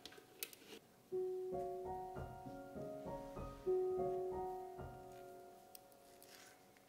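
Soft piano background music: single notes that ring and fade, starting about a second in.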